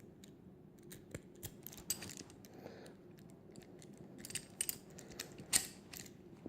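Small metallic clicks and rattles of a Master No. 3 key being worked in the cylinder of a Master Lock five-pin puck padlock, with a few sharper clicks about four and a half and five and a half seconds in.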